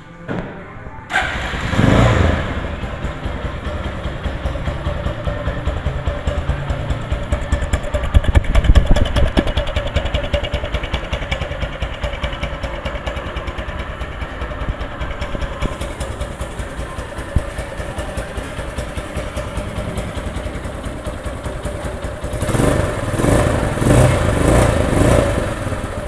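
Vento GTS 300 motorcycle engine and exhaust: the engine starts about a second in and runs steadily, revved up around a third of the way through, then given a series of quick throttle blips near the end.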